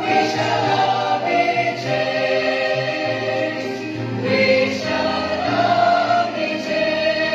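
Mixed youth choir of boys and girls singing together, holding sustained notes that change every second or two.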